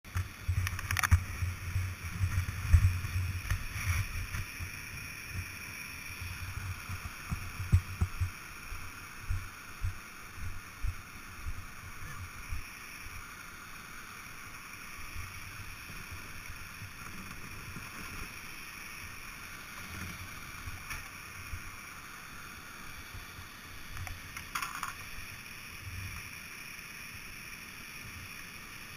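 Rushing white water of a river waterfall as a steady hiss, with wind buffeting the helmet camera's microphone heavily through roughly the first dozen seconds, then easing. A few sharp knocks stand out, one near the start, one about four seconds in and one near the end.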